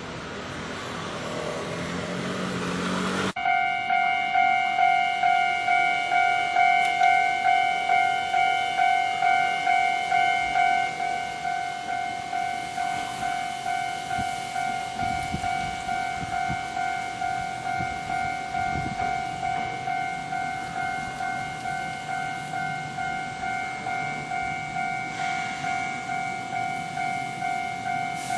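A train passes for the first three seconds and is cut off abruptly. Then a Japanese railway level crossing's warning bell rings the steady repeating 'kan-kan' tone, about two strokes a second.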